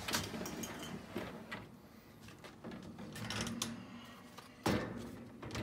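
A dishwasher's wire rack and plastic cutlery basket being handled and moved, giving a scatter of light rattles and clacks, with a sharper knock near the end.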